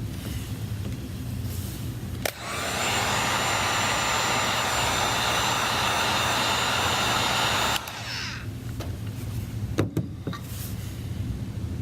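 Heat gun blowing steadily with a fan whine, switched on about two seconds in and cut off abruptly about five seconds later, softening the adhesive around an iPad Air's screen. A low steady hum runs underneath, with a sharp click near the end.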